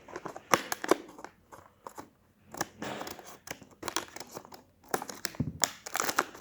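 A football trading card pack's wrapper being torn open and crinkled, in irregular crackly bursts.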